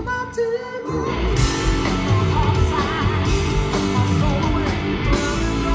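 Live rock power trio playing: electric guitar, electric bass and drum kit. The band thins out briefly at the start, then comes back in full, drums and cymbals included, about a second in.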